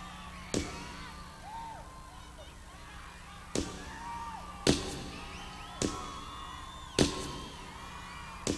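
Arena crowd screaming and whistling, cut through by six sharp, echoing percussion hits over the sound system. After a pause near the start, the hits come about every second or so.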